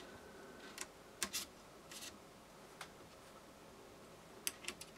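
Faint scattered clicks and taps of small metal parts being handled: toothed belt pulleys slid onto a steel shaft and set against its bearing blocks, with a quick run of three clicks near the end.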